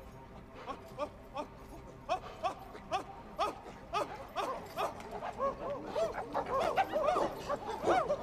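Apes hooting: a few scattered rising-and-falling hoots, then more and more voices join in and build into a louder chorus of overlapping hoots, a camp of apes calling out in protest.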